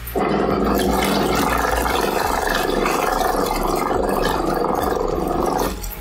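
Portable folding bucket washing machine running a wash: its motor-driven pulsator churning water and clothes in a steady, loud wash. The sound starts abruptly just after the start and cuts off suddenly near the end.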